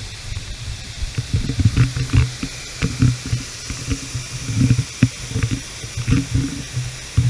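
Waterfall water rushing in a steady hiss, with many irregular low thuds starting about a second in.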